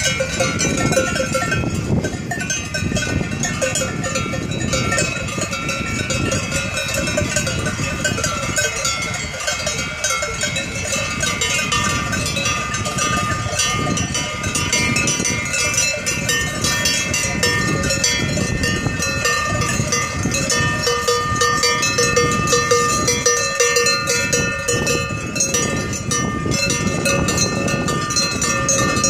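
Many cowbells on a herd of walking cattle clanging together without pause, bells of many different pitches ringing over one another.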